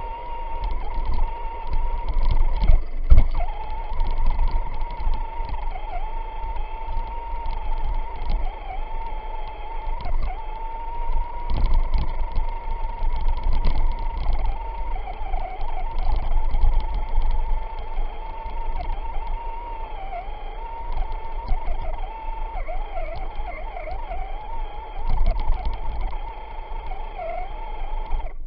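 Traxxas Stampede RC truck's electric motor and gears whining steadily from on board, the pitch dipping now and then, over a low rumble with knocks as the truck bounces through snow.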